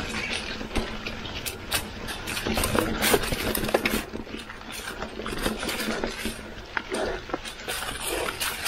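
Mountain bike rolling over dry leaf-covered dirt singletrack: tires crunching and rustling through fallen leaves, with sharp knocks and rattles from the bike over the rough ground.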